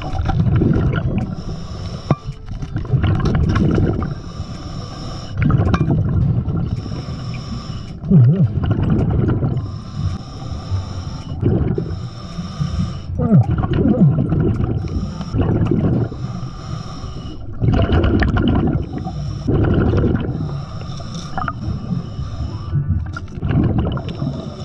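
A scuba diver breathing underwater through a regulator: a hiss on each inhale alternates with the low rumble of exhaled bubbles, in a steady cycle every few seconds.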